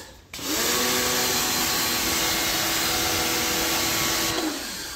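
DYLECT Ultra Flow Plus 1900 W electric pressure washer starting up: the motor whine rises to speed and runs steadily under the hiss of the water jet, then winds down and stops about four seconds in.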